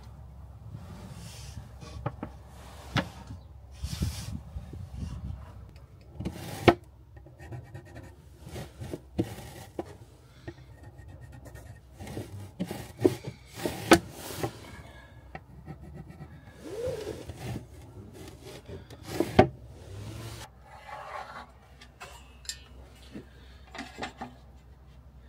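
Timber and plywood being handled and worked by hand: rubbing and scraping with irregular sharp knocks, three of them louder than the rest.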